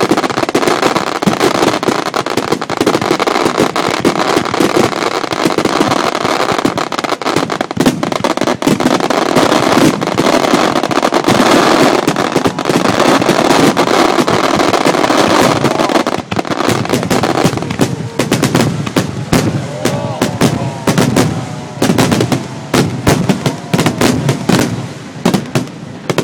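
Aerial fireworks going off in a dense, continuous barrage of bangs and crackling. After about sixteen seconds it thins into separate loud bangs with short gaps between them.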